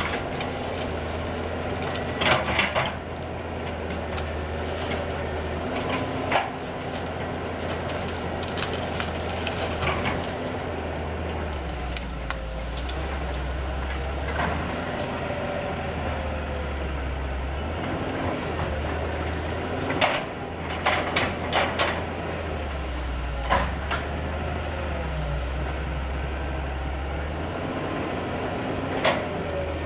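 Excavator's diesel engine running, its pitch shifting up and down as it works, with sharp knocks every few seconds and a quick cluster of them about two-thirds of the way through.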